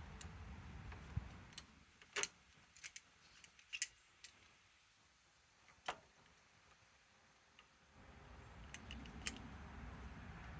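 Scattered light clicks and clinks of metal tools and parts being handled, a dozen or so spread unevenly, with a faint low hum coming back near the end. The impact wrench itself is not running.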